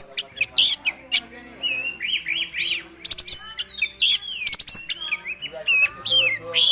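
Oriental magpie-robin (kacer) singing a fast, varied song of rising and falling whistles mixed with sharp clicking notes, running through its mimicked repertoire.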